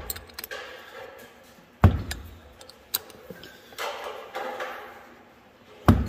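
Small wrench clicking and knocking against a steel grease zerk as it is forced in with short turns, self-tapping into an unthreaded hole. A few sharp metallic knocks, the loudest about two seconds in and just before the end, with lighter ticks and a short scrape between.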